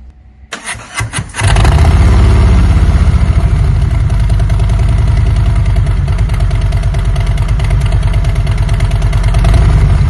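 2021 Harley-Davidson Road Glide's V-twin engine cranked by the starter for about a second, then catching and running loudly at idle through slip-on mufflers fitted with Forsch Performance Angry level 5 baffles.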